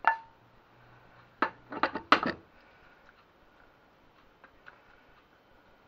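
Wooden spoon knocking and scraping vegetables out of a non-stick frying pan: one sharp clack at the start, then a quick run of four or five knocks about a second and a half in, followed by only faint soft taps as the vegetables are spread.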